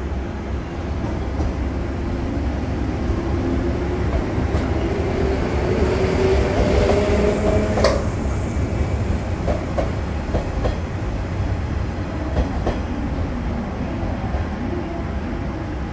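Yellow 115-series electric train running past on the next track, its wheels clicking over the rail joints over a steady low rumble. A whine rises in pitch through the first half, and there is one sharp click about eight seconds in.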